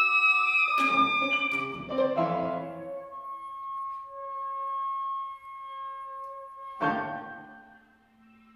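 Contemporary classical chamber quintet of flute, clarinet, piano, violin and cello playing live: loud struck chords about one and two seconds in, then a long held high note over a quieter lower one. Another struck chord comes near the end, after which the music thins to a soft, low held tone.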